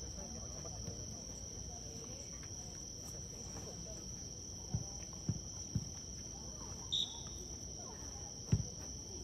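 Crickets trilling steadily in the background, with a few short dull thumps of a jokgu ball about halfway through and again near the end.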